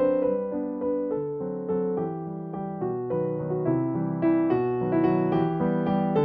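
Background piano music: a melody of single notes played over chords.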